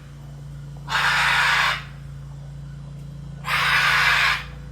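A macaw screeching: two loud, harsh calls of under a second each, about two and a half seconds apart, over a steady low hum.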